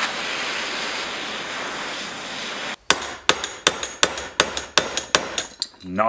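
A propane torch flame hissing steadily on a rusted door hinge pin, then about three seconds in it stops and a hammer strikes the metal about ten times in quick succession, roughly three blows a second, trying to drive out the seized hinge pin, which does not move.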